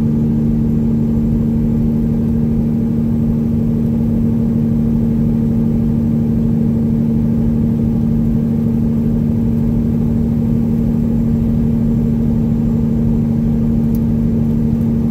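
Detroit Diesel Series 60 inline-six in a 1999 Peterbilt 379 with straight pipes, running steadily on the highway as heard from the cab: a loud, even drone that holds one pitch throughout.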